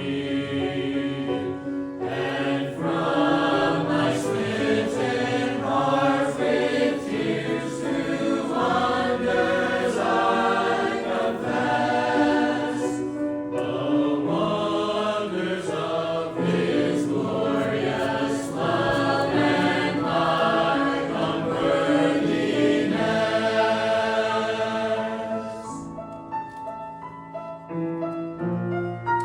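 Church choir singing a gospel hymn in full voice. Near the end the singing stops and a keyboard carries on alone.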